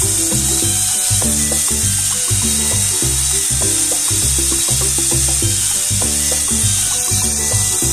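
Upbeat electronic background music with a bouncing bass line, over a steady high hiss.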